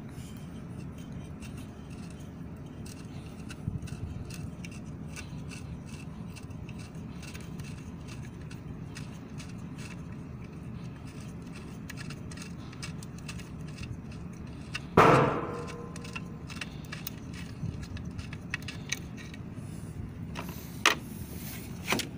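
Small metallic clicks and scrapes as nuts are spun off the studs of a Yamaha outboard's lower unit by hand, over steady low background noise. A sharp metal clank with a short ring comes about fifteen seconds in, and two smaller knocks come near the end.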